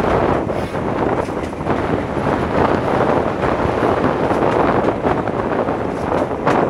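Heavy wind buffeting the microphone as it is held out of the window of a moving train hauled by a Class 26 diesel locomotive, the running of the train under the steady wind noise.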